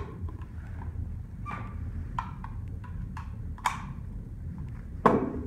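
Handling clatter: light clicks and knocks as ammunition boxes and gear are moved about on a carpeted shooting bench, with one louder knock about five seconds in as something is set down.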